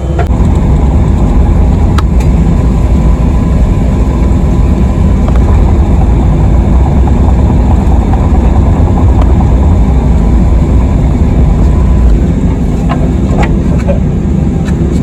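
Excavator's diesel engine running steadily at working speed while the machine handles debris with its digging bucket. A couple of light clicks are heard about two seconds in and near the end.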